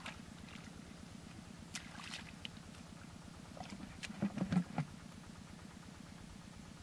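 Scattered short splashes and knocks of hands working in wet mud and at a plastic bucket. The loudest cluster comes about four to five seconds in, as a hand goes into the bucket. Under them runs a steady low engine drone.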